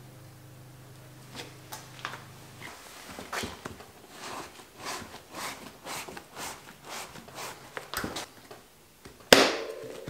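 A knobby Continental mountain-bike tire being worked onto its rim by hand: a run of short rubbing strokes of the rubber bead against the rim, about two a second, then a loud sharp snap near the end.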